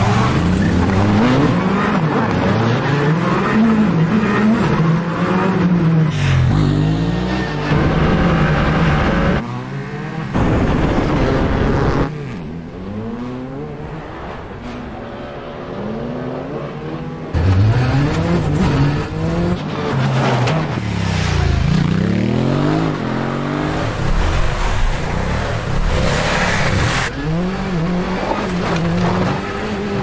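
Rally car engine revving hard, its pitch climbing and dropping again and again, with tyres skidding on loose dirt. The engine drops back and runs quieter for a few seconds around the middle, then revs up again.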